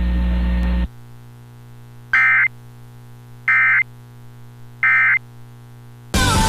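Emergency Alert System end-of-message code: three short, identical buzzy digital data bursts (the SAME 'NNNN' tones), each about a third of a second long and about a second and a third apart, over a faint hum. A steady hiss cuts off just before them, about a second in, and music starts loud near the end.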